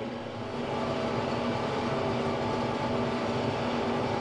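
Kubota M5-091 tractor's diesel engine running steadily under load while baling hay, a constant hum with a few steady tones in it.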